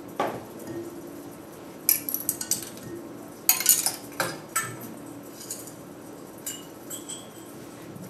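Icicles inside a glacier crevasse being struck, giving glassy clinks and tinkles in two quick clusters, about two and three and a half seconds in, then a few short ringing pitched notes. Heard as a recording played over loudspeakers in a lecture room, with a steady low hum under it.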